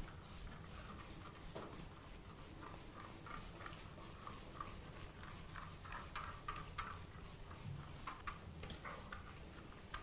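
Trigger spray bottle of multipurpose cleaner being squeezed over and over onto a bathroom sink, faint short spritzes in a rapid, even run.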